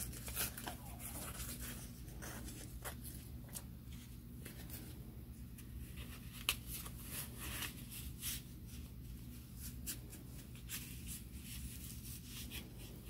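Hands working a cotton sock and a piece of sticky-back craft foam: faint rubbing and crinkling with many small ticks, as the backing paper is peeled off the foam and the foam is pressed into the sock to form the mouth. A sharper click comes about six and a half seconds in, over a steady low hum.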